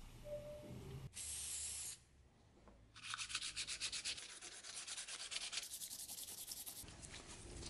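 Sandpaper rubbed by hand over a metal knife guard: a short steady rub, a brief pause, then quick back-and-forth sanding strokes, about five a second.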